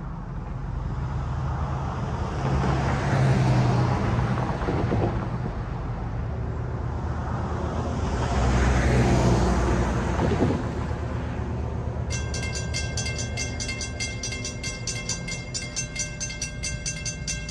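Two road vehicles pass by over a steady low rumble. About twelve seconds in, the railroad crossing's warning bells start a rapid, rhythmic ringing as the signals activate for an approaching train.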